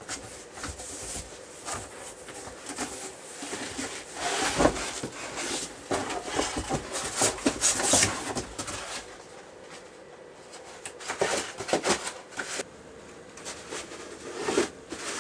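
Cardboard shipping box and moulded-pulp packing inserts being handled: irregular spells of rustling, scraping and light knocks as the inserts are pulled out of the open carton and stacked.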